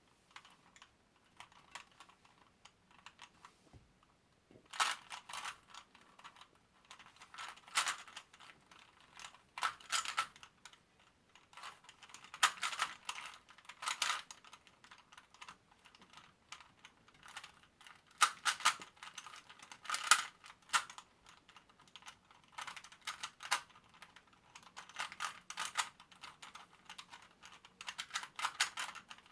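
A Rubik's brand 3x3 cube being turned fast during a speed solve: its plastic layers clack in rapid runs of clicks, with short pauses between runs. The turning is fainter for the first few seconds, then louder from about five seconds in. The cube is stiff and loud to turn.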